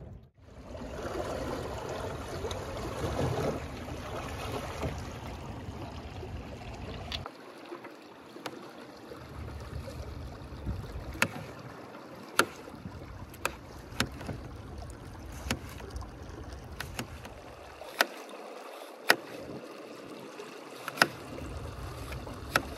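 River water moving and lapping, with a low rumble for the first several seconds. After that come sharp, irregular clicks or knocks, roughly once a second.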